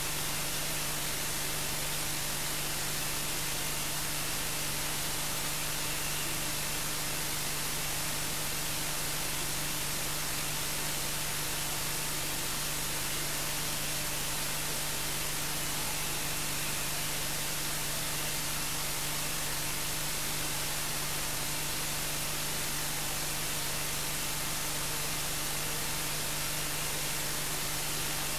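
Steady hiss of electronic static with a low, constant hum underneath, unchanging throughout and with nothing else in it.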